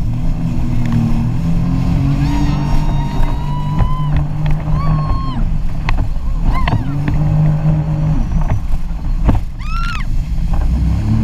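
Personal watercraft engine running under way, its pitch rising and falling as the throttle changes, with a few sharp knocks and several short high-pitched sounds on top.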